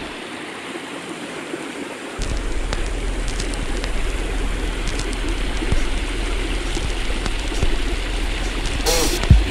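Shallow stream running and trickling over rocks and small cascades, a steady rushing hiss; a low rumble joins about two seconds in.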